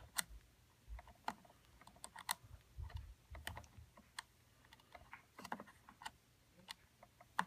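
Irregular small clicks and scratches of fingers twisting two thin wires together, with a few soft low bumps from handling.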